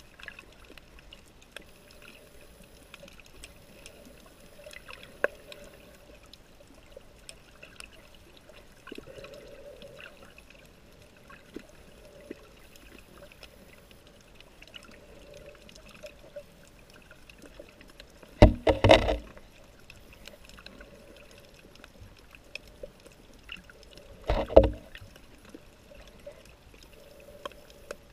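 Underwater reef ambience: a faint hiss with scattered small clicks, broken twice, about six seconds apart in the second half, by a short, loud burst of rushing water noise.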